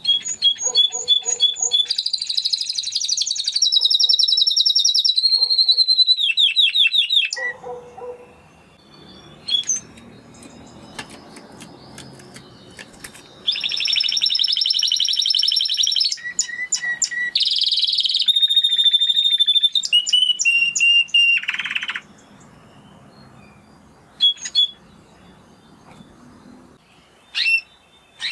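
Spanish Timbrado canary singing: two long phrases of rapid trills and rolls, the first lasting about seven seconds and the second starting about halfway through and running some eight seconds, with short scattered chirps in between and near the end.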